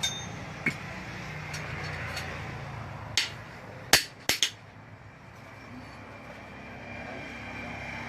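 Irregular metal-on-metal knocks and clanks in a blacksmith's shop, about six in all: one with a short ringing tone at the start, a few spread out, and the loudest a little under four seconds in, quickly followed by two more. A steady low hum runs underneath.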